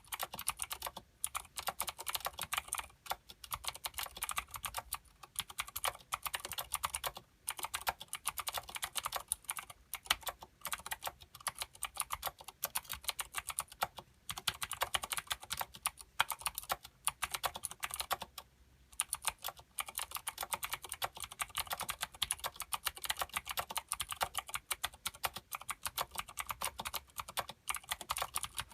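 Fast, continuous typing on a Filco Minila mechanical keyboard with clicky Cherry MX Blue switches and Vortex PBT doubleshot keycaps: a dense stream of keystroke clicks, broken by short pauses, the longest about two-thirds of the way through.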